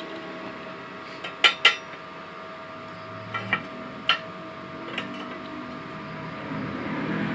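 A handful of sharp metallic clinks and knocks of steel pieces or tools being handled in a blacksmith's workshop, about six in all. The loudest are two close together about a second and a half in, and all sit over a faint steady hum.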